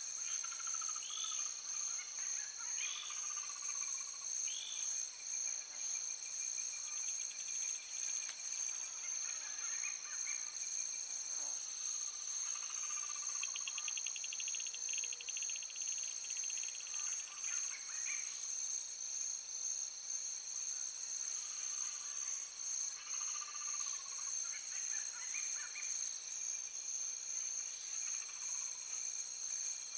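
Steady, high-pitched chorus of insects, with birds calling over it in short repeated phrases and a brief trill near the middle.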